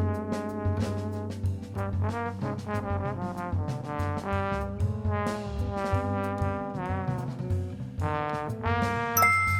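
Background jazz music: a horn melody over bass and drums.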